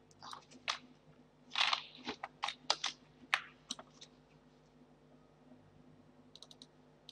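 Computer keyboard key presses and mouse clicks, faint: a run of separate clicks over the first four seconds, then a quick burst of four light clicks near the end.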